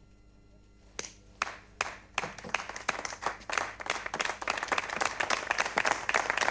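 A group of people applauding. A second of near silence, then a few separate hand claps that quickly spread into steady applause and keep getting louder.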